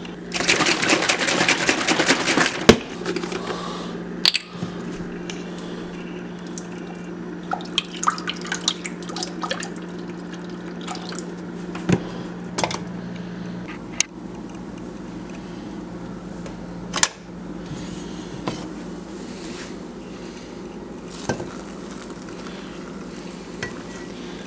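Almond milk poured into an empty stainless steel saucepan: a loud splashing rush for about two seconds. After that come quieter scattered clicks and taps of pan and utensils over a steady low hum.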